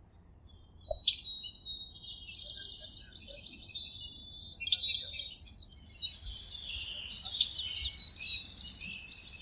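Several songbirds chirping and trilling, with quick repeated sweeping notes about halfway through.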